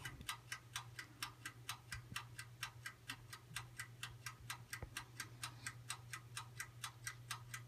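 Toaster oven's mechanical timer ticking fast and evenly, about six ticks a second, over a faint steady hum from the running oven.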